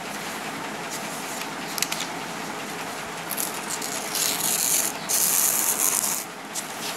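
Paper being torn along the edge of a ruler: two tearing pulls, about four and five seconds in, over a steady background hiss.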